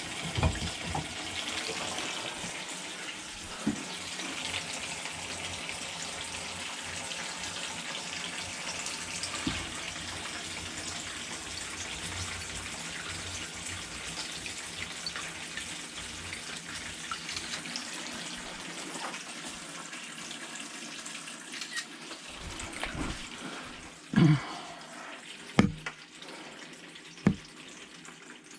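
Hot water tap running steadily into a sink. The flow gets quieter near the end, and three sharp knocks come in the last few seconds.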